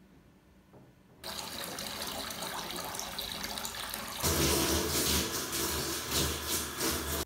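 Steady running water in a bathtub starting about a second in. About four seconds in it gives way to a louder handheld shower spray hitting a person and the shower floor, which cuts off suddenly at the end.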